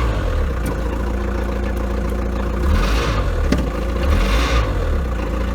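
Rover SD1's VM 2.4 turbodiesel running with the clutch engaged and revved up twice, about three and four and a half seconds in, with a short knock in between. It carries a vibration that shows in or out of gear, which the owner now takes to come from the engine rather than the gearbox.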